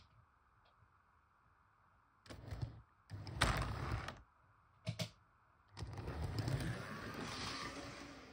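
Model train running on the layout track: a couple of short bursts of rattling and a sharp click, then a steady rattle from about six seconds in.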